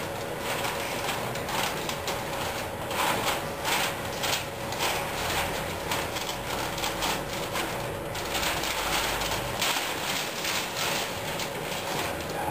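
Masking paper rustling and crinkling in irregular bursts as it is handled and pressed around a car's wheel opening, over a steady faint hum.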